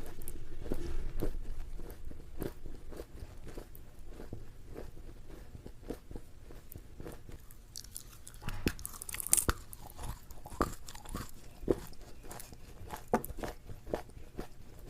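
Close-miked chewing and crunching of crisp food: irregular crunches and small clicks of the teeth. A louder, sharper crunch comes about nine seconds in.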